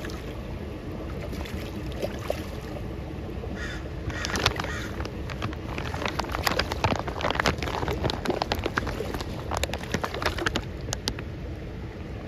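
Fish thrashing at the surface of a hatchery pond, a quick run of sharp splashes and slaps bunched in the middle, over a steady background hiss.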